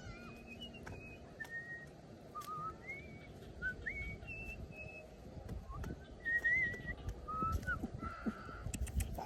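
A string of short whistled notes at changing pitches, some sliding upward, with brief pauses between them.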